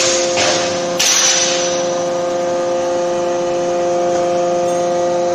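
Steady machine hum with a few held tones from a 31.5 kJ CNC closed-die forging hammer running. About a second in, a sudden burst of noise fades away over the next second.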